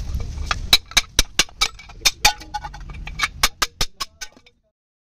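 Rapid series of sharp metallic taps and clinks, roughly five a second with a short pause midway, from steel cylinder liners being worked out of a cast iron diesel engine block. The sound cuts off abruptly near the end.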